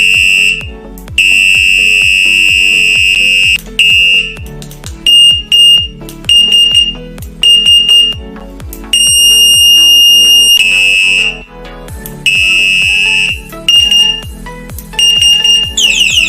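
Electronic bicycle horn with anti-theft alarm sounding a loud, shrill beep in changing patterns: long steady tones, runs of short beeps, and a rapid warble near the end. Background music with a steady beat plays underneath.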